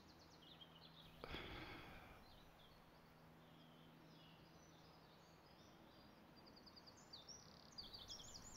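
Faint birds chirping in quiet open-air background, with a short breathy sigh about a second in; the chirps grow busier near the end.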